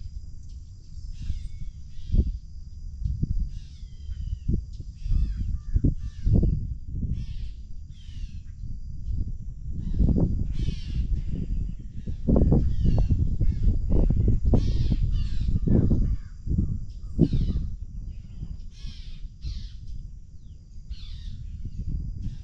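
Birds calling over and over in many short calls, over a gusty rumble of wind on the microphone that is strongest about halfway through.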